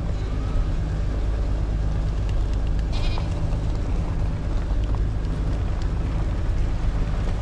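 A goat bleats once, briefly, about three seconds in, over the steady low drone of the idling truck.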